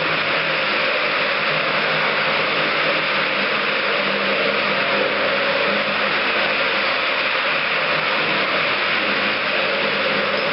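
Single-disc rotary floor machine running steadily, its pad turning against an oak parquet floor: a continuous motor hum with a few steady tones over a dense whir.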